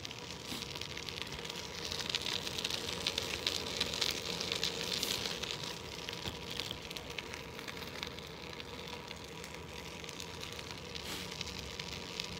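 Bicycle tyres rolling on a wet road: a steady crackling hiss of water under the tyres, a little louder for a few seconds early in the middle.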